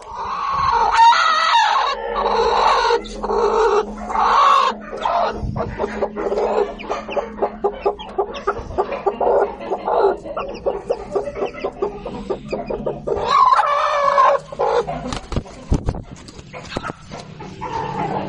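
Chickens calling: a hen clucking with a few long drawn-out calls, about a second in, around four seconds in and again later, over a busy run of short quick cheeps from the chicks.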